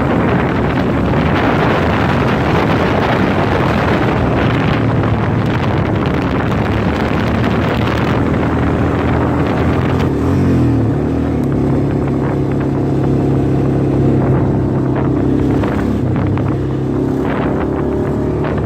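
A car's engine and road noise while driving, steady, with the engine note shifting about ten seconds in.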